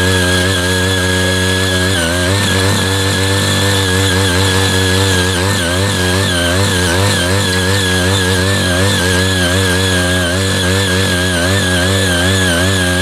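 Small engine of a CY80 walk-behind power tiller running under load as its rotary tines churn through hard, cloddy soil. The engine's pitch wavers and dips as the tines bite into the clods, with a steady high whine over it.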